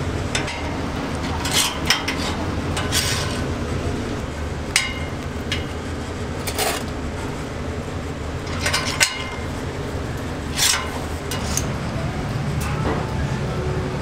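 Steel rotisserie spits clinking and scraping against metal as whole raw chickens are threaded onto them, with irregular sharp clinks every second or two over a steady low background rumble.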